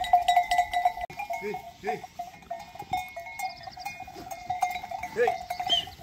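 Livestock bells clanking continuously on a flock, with a few short bleats about one and a half, two and five seconds in.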